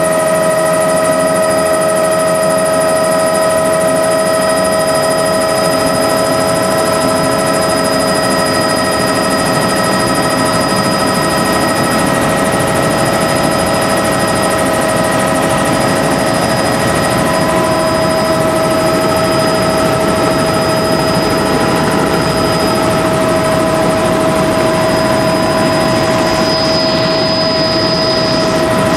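Helicopter in flight heard from inside its cabin: a loud, steady drone of engine and rotors with constant high whining tones over it.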